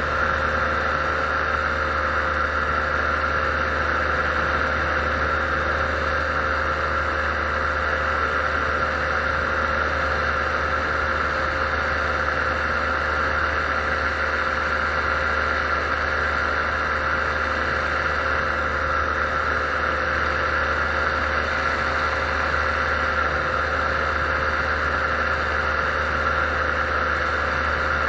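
Paramotor engine and propeller running steadily at constant throttle in level flight, with a steady drone that does not change pitch.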